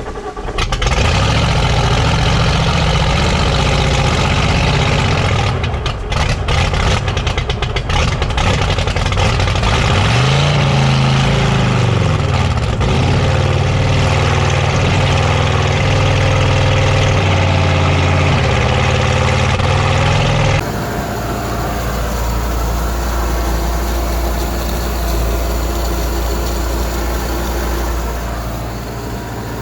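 Chevy small-block V8 boat engine starting up and running unevenly, revved up and back down about ten seconds in. It is being run so its mechanically driven water pump can draw cooling water after ten years of sitting. About two-thirds of the way through the sound changes abruptly to a steadier, lower-pitched running.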